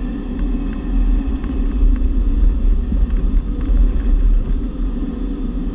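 Steady low rumble of airflow and cockpit noise inside a G103 Twin Astir two-seat glider on aerotow, with a few faint ticks.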